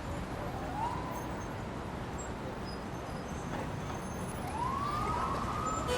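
Steady city traffic noise with a siren rising in pitch, briefly near the start and again, longer, from about four and a half seconds in.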